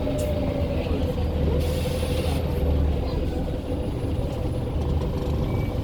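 Scania L94 single-deck bus's turbocharged diesel engine running, heard from on board as a steady low rumble, with the rattling of the bus's fittings. A brief hiss comes about two seconds in.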